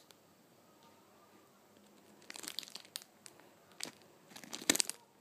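Crinkling of the plastic wrapping on a squishy toy as it is handled: a few short spells of crackling after a quiet start, the loudest near the end.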